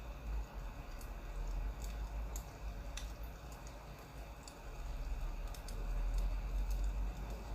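Firewood crackling as it burns: scattered sharp pops and clicks at irregular intervals over a low steady rumble.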